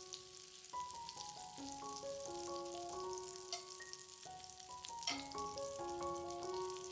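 Food sizzling and crackling in a frying pan, with two sharp clicks about halfway through, over background music with a stepping melody.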